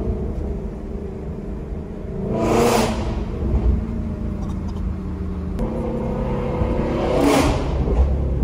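A vehicle driving at road speed, with a steady engine and road rumble. Two other vehicles whoosh past, one about three seconds in and one near the end.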